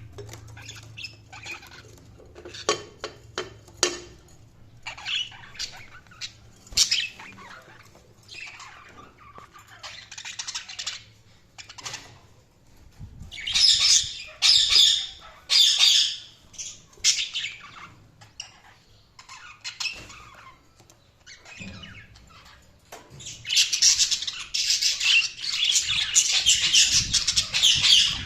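Budgerigars chirping and chattering with short squawks, in bursts, getting denser and louder about halfway through and again near the end.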